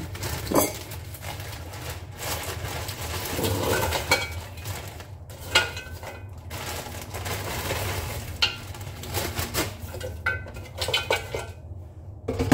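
Fries being poured from a plastic bag into an air fryer basket: the bag rustles and the fries clatter against the basket, with a few sharp knocks, over a steady low hum.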